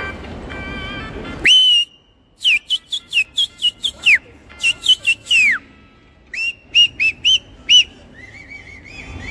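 A man whistling in quick runs of short, sharp notes that slide up and down in pitch, with a softer run near the end. Before it, about a second and a half of street noise with faint music cuts off abruptly.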